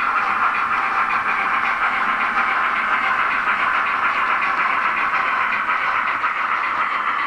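Sound decoders in two Roco H0 class 50 steam locomotive models, running coupled together, playing a steady, rapid steam chuffing over the running noise of the models on the track.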